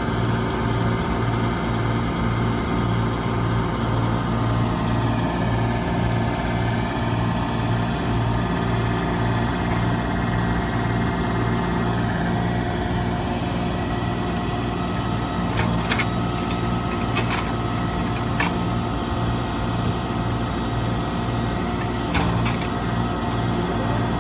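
Engine of a log-loading machine running steadily at a constant speed, with a few sharp knocks in the second half.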